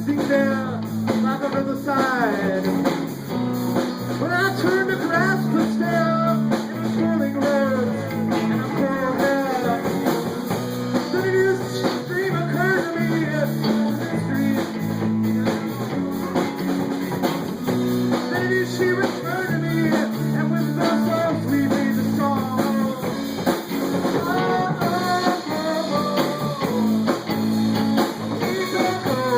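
Live band playing a song, with guitar and drum kit.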